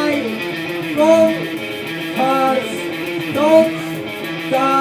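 Live jazz-punk band playing an instrumental intro: an electric guitar riff of bending, sliding notes that repeats about once a second, with no singing yet.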